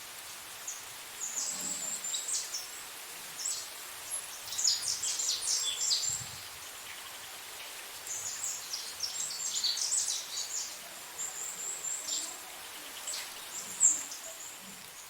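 Small birds chirping in quick, high clusters over a faint steady hiss.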